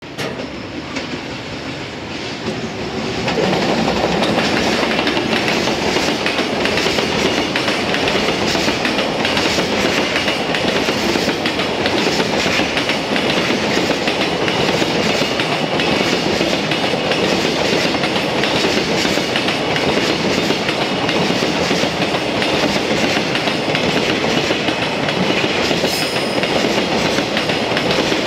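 Freight train of container wagons rolling past close by, the wheels clattering steadily over the rail joints. The sound swells about three seconds in as the train reaches the camera, then stays level.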